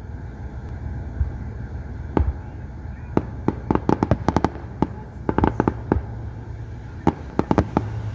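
Fireworks bursting: a couple of single bangs, then rapid volleys of sharp pops from about three seconds in, building toward the finale.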